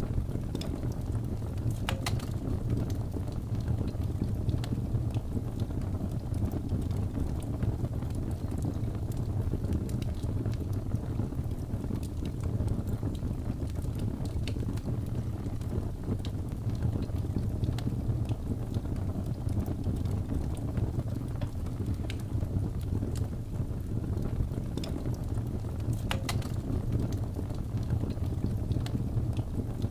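Wood fire burning: a steady low roar of flames with scattered crackles and pops from the burning wood, a couple of sharper pops about two seconds in and near the end.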